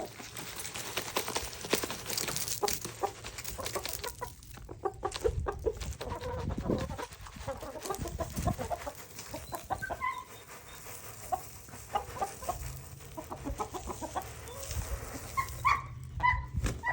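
Flock of chickens clucking softly as they feed on scraps, with many short clicks and rustles from pecking throughout.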